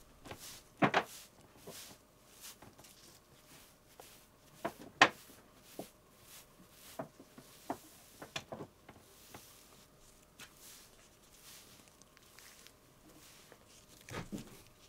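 Scattered soft taps and rustles from handling and movement, with a sharper tap about five seconds in and a few more around eight seconds.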